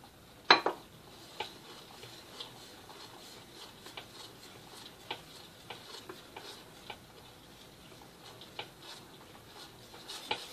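Wire whisk stirring melted chocolate and hot milk in a glass bowl, its wires ticking faintly and irregularly against the glass, with one sharper clink about half a second in.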